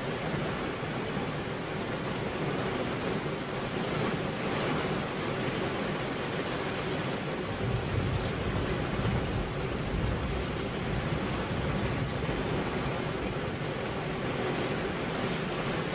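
Steady hiss of rain falling on a car window, heard from inside the car, with a low rumble swelling around the middle.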